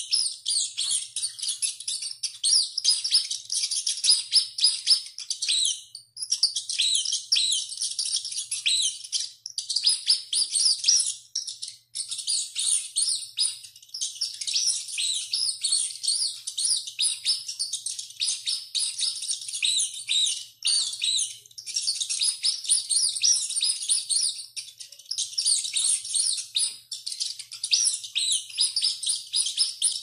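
Rodents squealing: a dense, near-continuous stream of rapid high-pitched squeaks, with a few brief breaks.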